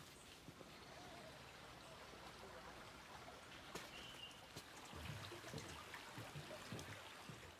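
Near silence: faint outdoor ambience with a few light clicks, a brief high chirp about four seconds in, and a few soft low thuds from about five seconds on.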